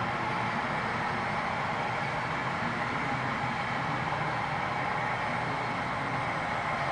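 HO scale model train running on the layout: a steady diesel engine drone from the sound-equipped locomotives, with wheels rolling on the rails.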